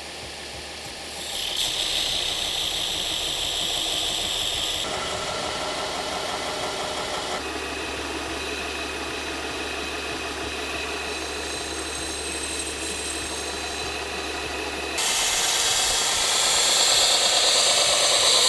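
Power grinder rough-grinding a steel knife blade, a steady hissing grind that changes sharply in pitch and level several times and grows louder about 15 seconds in.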